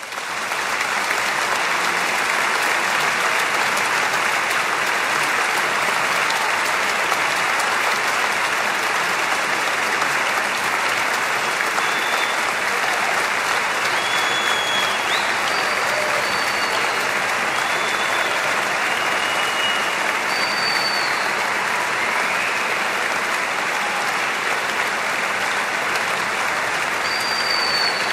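Concert audience applauding steadily after an orchestral performance, the clapping starting abruptly as the music ends.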